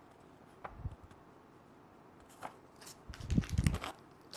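Plastic toy parts being handled: a few small clicks and taps, then a cluster of soft bumps about three seconds in.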